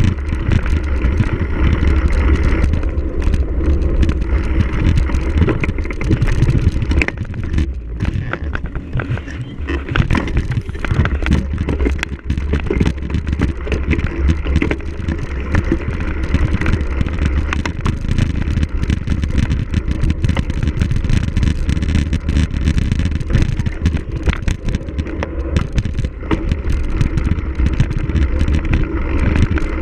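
Cyclocross bike ridden hard over rough ground: a dense clatter of chain and frame rattles over tyre noise, with heavy wind rumble on the microphone.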